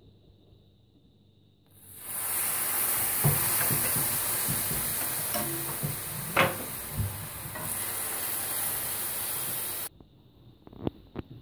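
Hot sugar syrup poured over hot, freshly baked baklava, sizzling with scattered crackles; the sizzle starts about two seconds in and cuts off abruptly near the end, followed by a few small taps.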